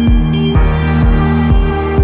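Electronic background music with a steady beat of about two a second under held chords; a hissing swell comes in about halfway through.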